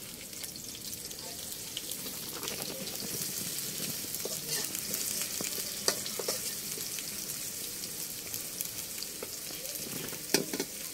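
Chopped onion sizzling in hot oil in a metal karahi over a wood fire, with a metal spatula stirring and scraping against the pan, giving scattered sharp ticks over the steady sizzle.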